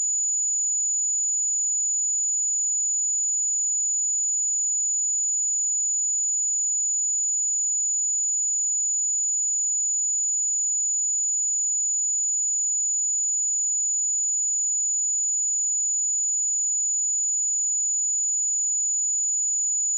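Pure 6921 Hz sine-wave test tone, a single steady high-pitched whistle-like tone held at constant level without a break.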